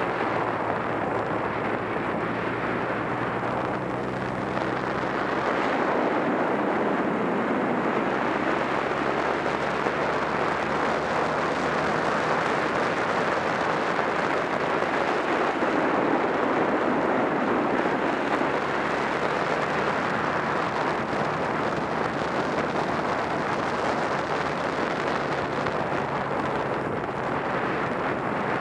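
Honda Rebel 250's parallel-twin engine running steadily while riding at speed, under loud rushing wind and road noise on the microphone.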